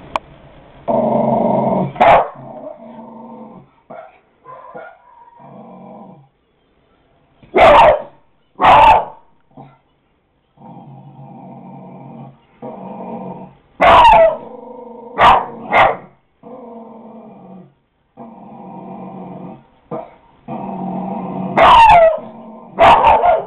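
Dog barking in loud single and paired barks, about nine in all in a few clusters, with long stretches of low growling between them.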